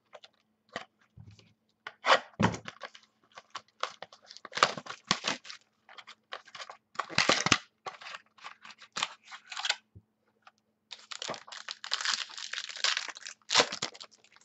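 Hands opening a football trading-card pack: paper and foil rustling and tearing in many short, irregular bursts, with a longer spell of continuous tearing and crinkling about eleven seconds in.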